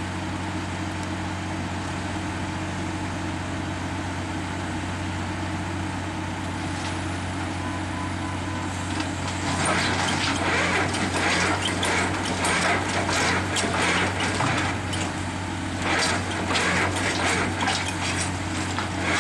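Diesel engines of heavy machinery running steadily. About nine and a half seconds in, earth and gravel start pouring out of a drilling rig's raised drill tool into a loader's steel bucket, a loud gritty rattle of falling stones and soil that eases briefly and then picks up again.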